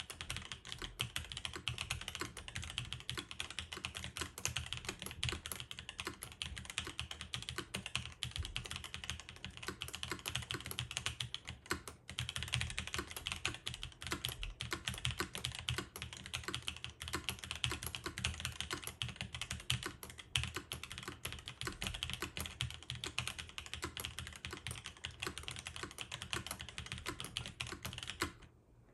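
Continuous fast typing on a gasket-mount custom mechanical keyboard with lubed and filmed Prevail Epsilon tactile switches, GMK ABS keycaps and an aluminium plate, giving a deep "thocky" keystroke sound. There is a brief pause about twelve seconds in, and the typing stops just before the end.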